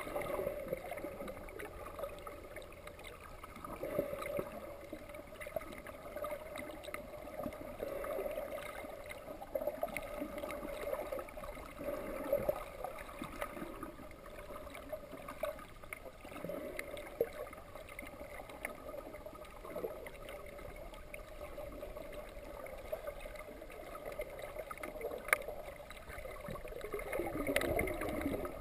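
Underwater sound picked up by a dive camera in its housing: a steady hum with irregular watery surges every few seconds.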